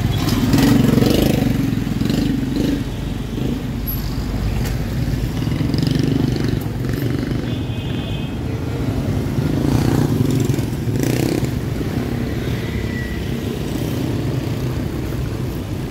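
City street traffic, mostly motorbikes: engines running and passing close by, swelling louder about a second in and again about ten seconds in.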